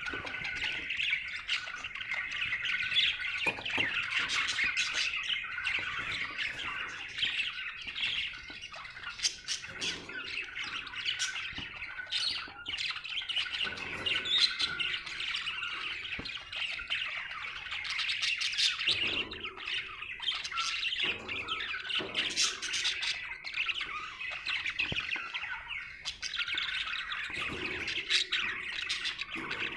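Budgerigar chattering and warbling without a break, a fast stream of chirps and warbles with louder squawky calls mixed in. The bird is singing contentedly.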